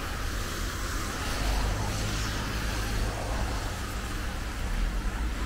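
Road traffic: the steady hiss and low rumble of cars going by, swelling slightly about two seconds in.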